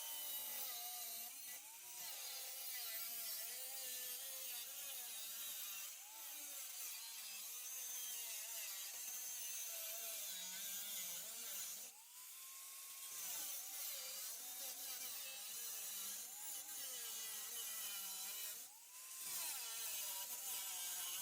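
Small high-speed rotary cutting tool cutting out a sheet-metal patch piece: a whine that sags and wavers as the tool bites into the metal and climbs back when it comes off the cut, with brief pauses about a third of the way in, halfway through and near the end.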